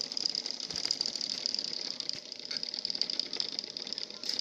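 Miniature scooter-engine model driven by a small electric motor, running with a fast, steady mechanical rattle.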